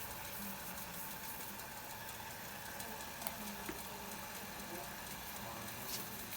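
Pot of chicken broth with dumplings boiling steadily, a low even bubbling hiss with a few light clicks.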